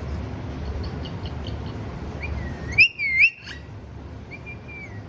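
Pet parrot whistling: soft short chirps, then a loud wavering whistle about three seconds in, and a held whistle that drops in pitch at its end near the close.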